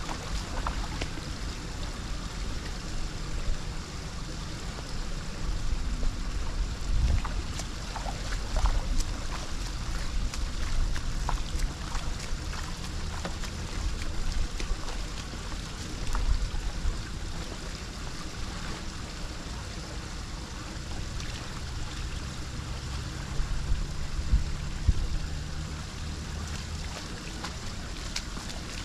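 Floodwater flowing steadily, with low wind rumble on the microphone and occasional short knocks or splashes.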